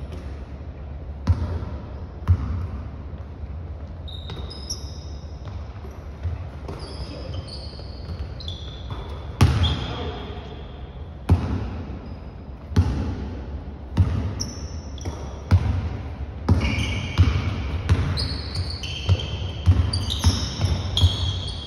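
A basketball bouncing on a hardwood gym floor, heard as irregular sharp thuds with a short echo, coming more often in the second half. Sneakers squeak on the floor in short high chirps between the bounces.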